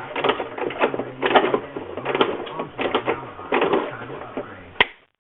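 Hand pop rivet gun being squeezed repeatedly, a series of mechanical clicks about one every two-thirds of a second. Near the end a sharp snap marks the rivet's mandrel breaking off as the rivet sets through the helmet shell with its backing washer.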